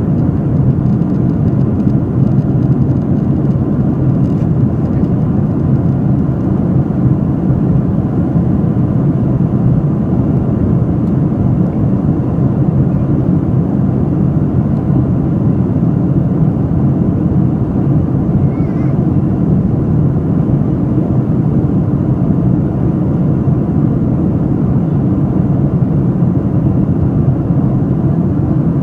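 Steady, unchanging low rumble of an airliner's engines and rushing air.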